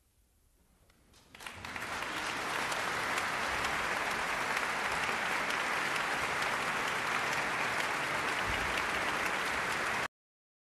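Audience applause: after a near-silent pause a few scattered claps come in, then the clapping breaks out suddenly about a second and a half in, settles into a steady, dense applause, and cuts off abruptly near the end.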